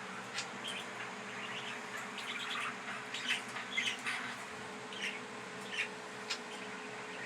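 Pet budgerigars chirping: a string of short, scattered chirps over a faint steady hum.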